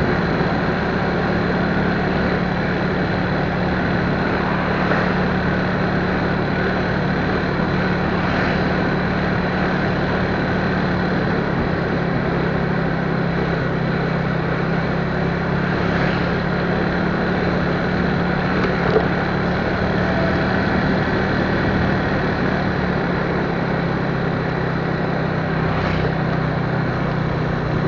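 A vehicle travelling at a steady speed: an even engine hum under a constant wash of road and wind noise, with a faint tick or two.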